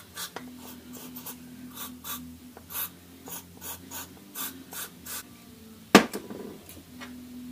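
Short rubbing and scraping strokes, a few a second, as grease is worked by hand onto a brake caliper's slide pin. A single sharp knock about six seconds in is the loudest sound.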